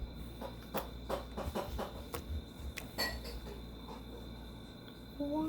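Hands squishing and stretching sticky mermaid slime, making irregular small clicks and pops. A child starts humming near the end.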